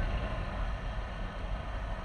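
KTM 390 Adventure's single-cylinder engine running steadily at low speed in third gear, with wind and road noise.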